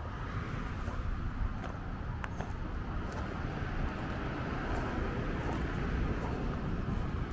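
Steady rumble of traffic on a nearby road, with faint footsteps crunching on a gravel path.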